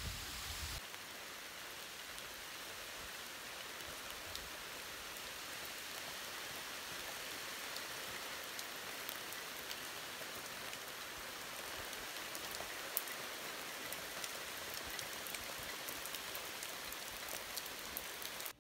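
Steady rain falling on trees and leaves: a continuous hiss with scattered faint drop ticks.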